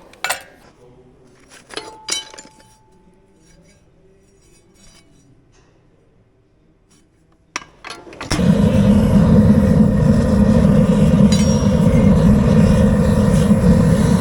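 A few sharp metallic clinks, then after a quiet stretch a click and the forge firing up: a loud, steady rushing noise that starts suddenly about eight seconds in and keeps going.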